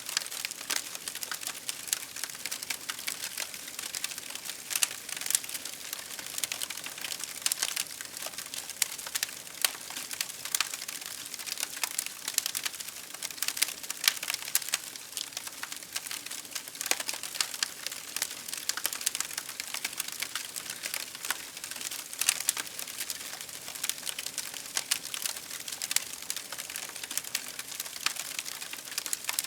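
Wood fire crackling steadily, with dense, irregular sharp pops and snaps over a faint hiss.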